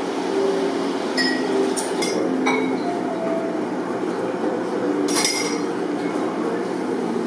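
Restaurant hubbub, a steady murmur of distant voices, with several light clinks of dishes and glassware. The loudest clink comes about five seconds in.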